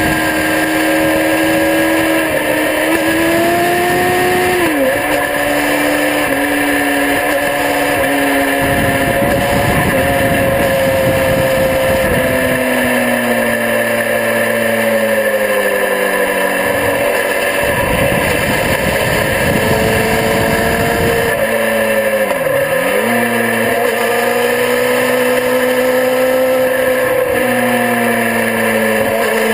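Sport motorcycle engine running hard at speed on a racetrack, heard from a camera mounted on the bike. Its pitch rises and falls with throttle and gear changes, with sharp dips about five seconds in and again about two-thirds through. Heavy wind rush on the microphone comes and goes.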